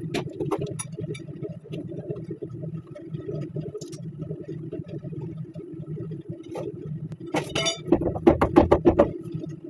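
Light metallic clinks of tools and brake parts over a steady low hum. Near the end comes one ringing clink, then a loud run of about eight quick metal clanks in just over a second as the brake caliper on a truck's front hub is rocked and worked loose from the rotor by hand.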